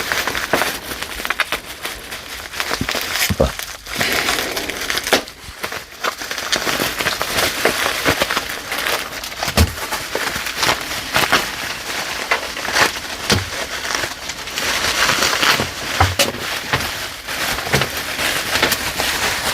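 A mailed package being opened and unwrapped by hand: continuous crinkling and rustling of wrapping material with many small crackles and snaps.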